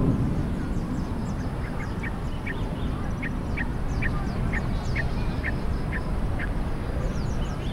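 A bird calling a series of about a dozen short notes, two or three a second, from about a second and a half in until near the end. Thin high chirps of small birds come and go over a steady low rumble of background noise.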